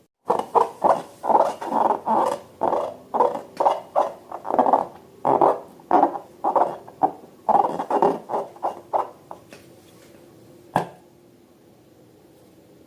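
Slime being squeezed and worked by hand: a quick run of wet squelches, about two a second, that stops about nine and a half seconds in, followed by a single sharp click near the end.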